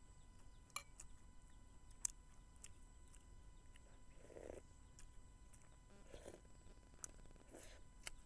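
Faint eating sounds: two sharp clicks of a metal spoon against a ceramic bowl in the first two seconds, then a few soft slurps and chewing as soup broth and cooked leaves are sipped from the spoon.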